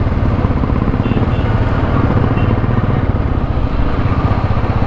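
Royal Enfield Classic 350's single-cylinder engine running steadily while riding, its fast firing pulses heard close up from the rider's position.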